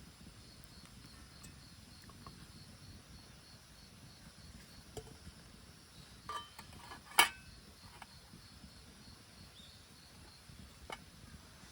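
Insects chirping in a steady, evenly pulsing high trill. A few scattered clicks and knocks; the loudest is a sharp knock about seven seconds in.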